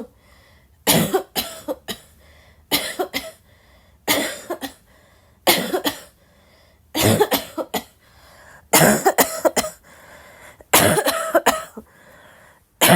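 A person coughing over and over, non-stop: short fits of two to four coughs come every one to two seconds, about eight fits in all.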